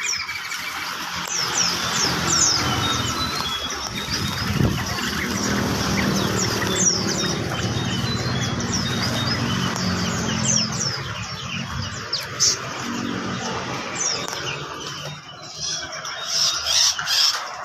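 Many small caged songbirds chirping and calling at once: a dense run of short, high, downward-sliding chirps over a steady background din.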